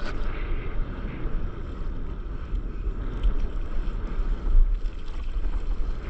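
Wind buffeting the microphone in uneven gusts, with sea water washing around a stand-up paddleboard.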